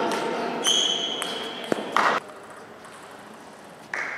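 Table tennis between points: a high squeak lasting about a second, two sharp taps about two seconds in, and a sudden knock with a short ring near the end.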